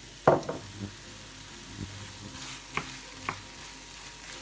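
A wooden spoon stirs minced beef and frozen peas in a frying pan, knocking and scraping against the pan several times, loudest about a third of a second in. Under the knocks there is a low sizzle of frying.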